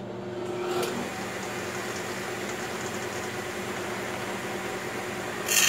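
Table saw running with its blade spinning freely, then much louder about five and a half seconds in as the blade cuts into a wooden door rail to form a stub tenon.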